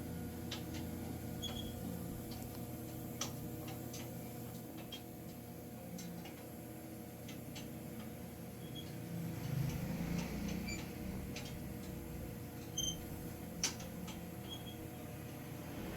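Rotary rotisserie barbecue machine running: a steady low hum with scattered light clicks and ticks at irregular intervals.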